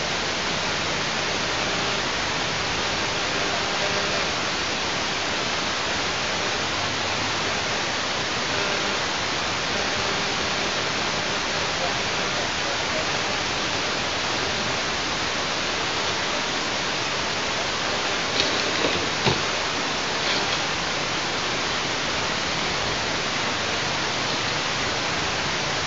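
Steady, even hiss on the nest camera's outdoor microphone, with a few short clicks or knocks about two-thirds of the way through.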